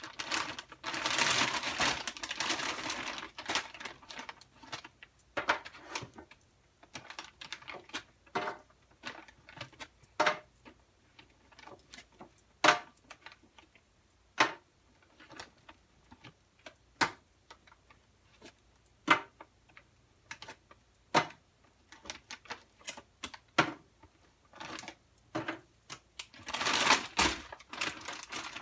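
Frozen chicken nuggets dropped one by one into a pan, giving sharp, irregular clicks and clatters about once or twice a second. The plastic nugget bag rustles about a second in and again near the end.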